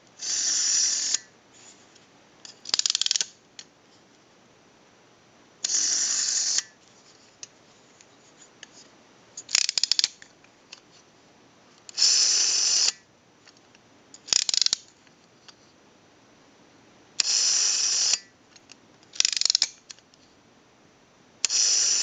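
Early Automatic Electric candlestick rotary dial being wound and let go five times. Each cycle is a steady whirring run of about a second and a shorter burst of ratcheting clicks.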